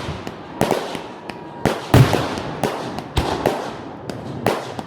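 Fireworks finale: aerial shells bursting in quick succession, about two or three sharp bangs a second, each trailing off in an echoing rumble and crackle.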